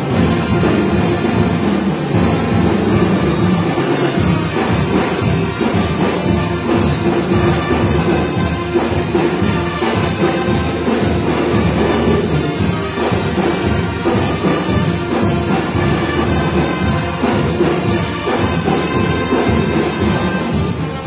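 A school marching band playing a tune: trumpets and saxophones over sousaphone, bass drum and other drums, with a steady drum beat.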